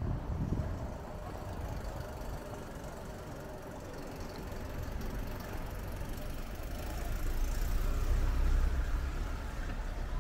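Street traffic: a motor vehicle's engine running close by, with a low rumble that grows louder about seven seconds in, as if the vehicle is passing.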